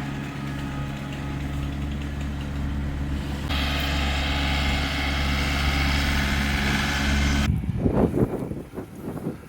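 A motor vehicle's engine running steadily, with a hiss joining it about three and a half seconds in. Both cut off abruptly near the end, leaving a few irregular low rumbles.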